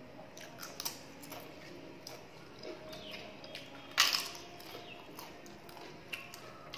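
Eating sounds: small crunches and mouth clicks of chewing, with one loud, sharp crunch about four seconds in as a piece of crisp papad is bitten.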